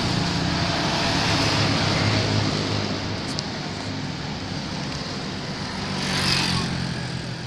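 Road traffic: a vehicle's engine running with tyre noise, easing off after about two and a half seconds. About six seconds in, another vehicle swells past.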